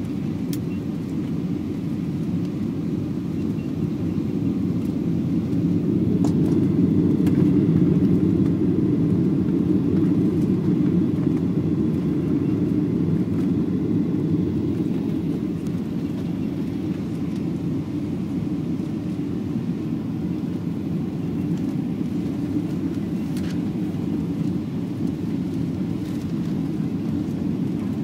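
Steady low rumble of engine and airflow noise inside the cabin of a Boeing 737-800 on landing approach with flaps extended. The rumble swells a few seconds in and eases back again.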